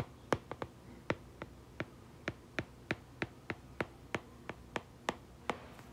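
Stylus tip clicking on a tablet screen during handwriting: a string of sharp, light taps, about three to four a second at an uneven pace.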